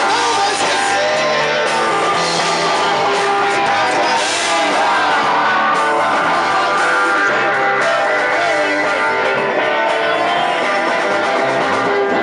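Rock music led by guitar, with a bass line that steps from note to note.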